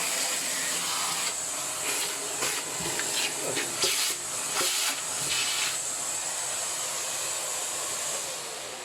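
Vacuum cleaner running steadily with a high whine, sucking caked dust off a ventilation fan motor's impeller, with scattered scrapes and knocks of the nozzle. It starts to wind down right at the end.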